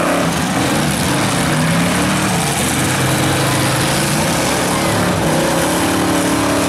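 Demolition derby cars' engines running and revving together in a loud, steady din, the pitch rising and falling as the drivers work the throttle.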